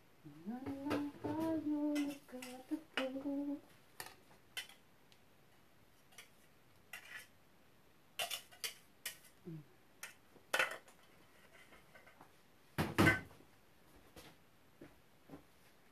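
Kitchen dishes and utensils clinking and knocking in a string of separate sharp clicks, with the two loudest knocks in the last third. A woman's voice hums briefly at the start.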